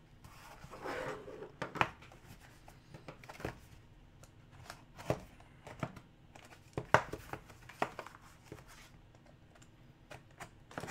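A cardboard trading-card box in plastic wrap and a folding utility knife being picked up and handled: scattered light clicks, taps and rustles, with a few sharper clicks among them.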